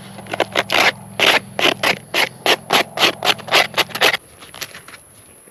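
Rapid, rhythmic scraping strokes, about four a second, as the burnt crust is scraped off a campfire-cooked pizza; the scraping stops a little past four seconds in.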